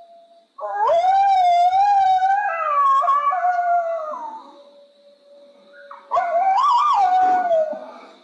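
Coyote howls: two long, wavering howls, the first starting about half a second in and the second about six seconds in, each rising at the start and sliding down at the end.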